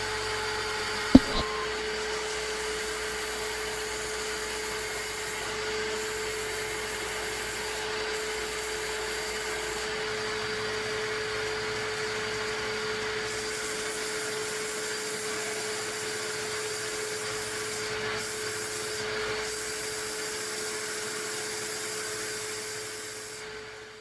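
Small bench sander running steadily with an even whine while the corners of a hardwood end-grain cutting board are sanded to 45-degree bevels. A single sharp click comes a little over a second in, and the sound fades out near the end.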